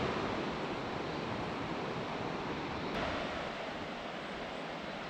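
Steady rushing of running water, starting suddenly.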